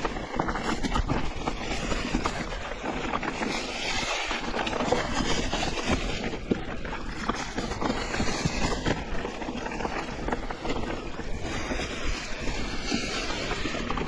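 Wind rushing over the microphone while riding an electric mountain bike on a rough trail, with a constant patter of small knocks and rattles from the tyres and bike over the ground.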